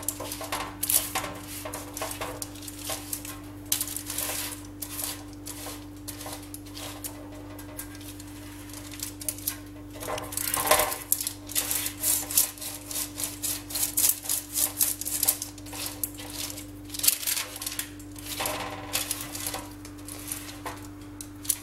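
A pastry brush rubbing oil over parchment paper on a metal baking tray: repeated short, scratchy strokes in uneven runs, with the paper rustling under the brush.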